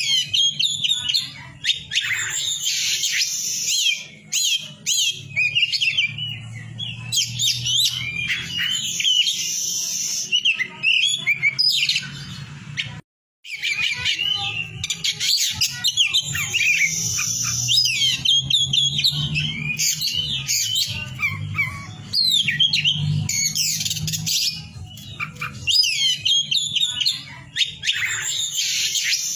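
Kacer poci (a black-bellied form of the oriental magpie-robin) singing gacor: a continuous, rapid song of varied chirps, trills and whistles, broken once by a brief gap about thirteen seconds in, over a low steady hum.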